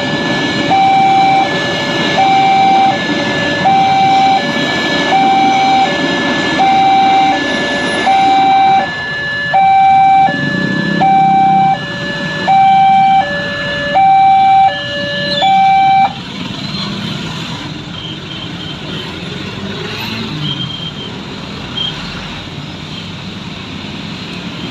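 Railroad crossing warning alarm: an electronic two-tone signal alternating a higher and a lower note, repeating about once every second and a half. It cuts off suddenly about two-thirds of the way through, leaving the low rumble of road traffic.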